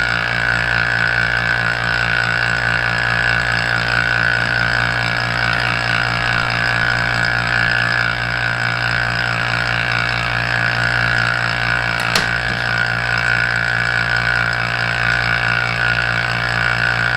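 Vacuum test machine's pump running steadily, a hum with a hiss. There is a single sharp click about twelve seconds in.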